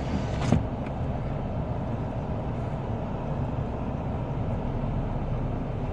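Car heard from inside the cabin while driving: a steady low rumble of engine and road noise, with one sharp click about half a second in.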